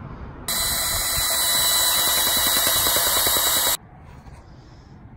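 Bosch cordless drill driving a spade bit through a wooden post: a steady high whine with a rapid chatter of the bit cutting, starting about half a second in and cutting off suddenly after about three seconds.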